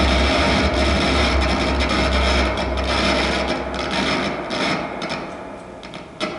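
Live free-improvised noise music from an electric guitar, alto saxophone and drums trio: a dense scraping, grinding wash over a deep low drone. The drone drops out about halfway through and the texture thins and quietens before swelling again near the end.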